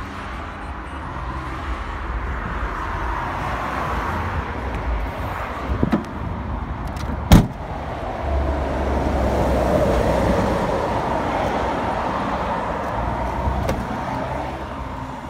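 Road traffic noise that swells and fades twice, like vehicles passing, with one sharp knock about seven seconds in.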